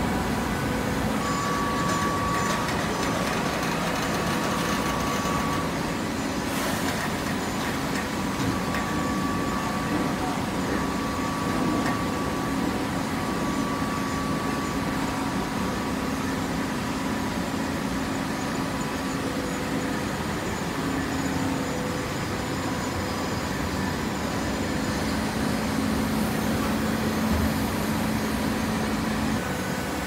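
Automatic horizontal hydraulic baler running, a steady mechanical drone from its hydraulic power unit with several held hum tones.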